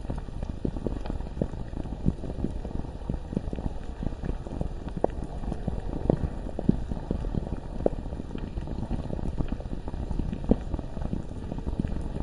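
Bubbling lava ambience: a dense, irregular stream of deep bubbling pops, with a few louder pops standing out.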